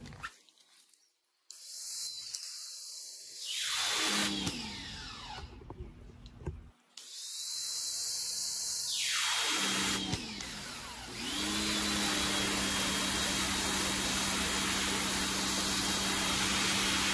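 PowRyte electric pressure washer's motor and pump spinning up with a rising whine as the trigger is pulled, then running steadily under the hiss of the water jet striking stone pavers. It starts and stops a few times with short silences between, and runs unbroken through the last several seconds.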